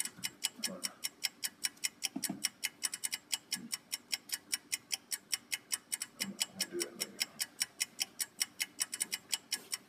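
Rapid, even ticking, about five ticks a second, like a clock or timer.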